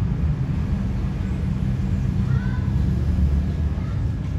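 A steady low rumble of background noise throughout.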